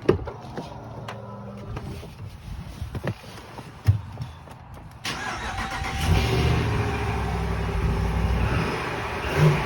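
A few clicks and knocks, then about five seconds in the 2020 Ram's 5.7 eTorque V8 starts and settles into a steady idle. The belt whine is gone now that the tensioner pulley has been replaced.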